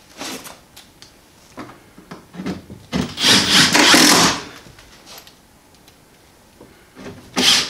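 Cordless drill driving a screw up into the wooden mantel frame for a little over a second, then a second screw starting near the end, after a few light knocks of the drill and wood being handled.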